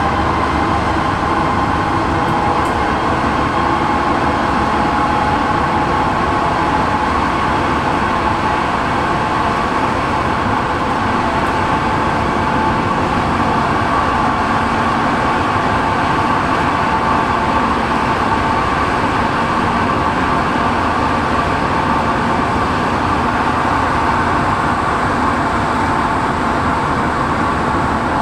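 Santiago Metro NS16 train running between stations, heard from inside the driver's cab: a steady, even running noise with a steady whine.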